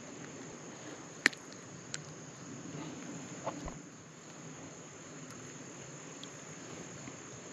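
Insects trilling steadily at a high pitch, with a sharp click just over a second in and a fainter one a moment later.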